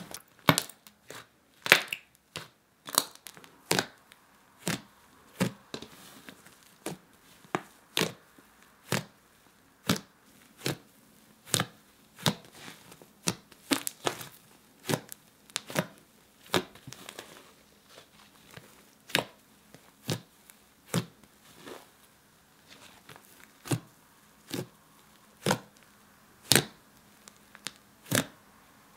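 Fluffy blue shaving-foam slime being poked and squeezed by fingers, giving sharp crackling pops about once a second.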